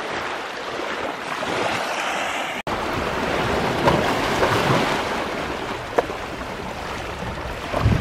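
Sea waves washing onto a sandy beach, with wind rushing over the microphone. The sound cuts out for an instant about two and a half seconds in.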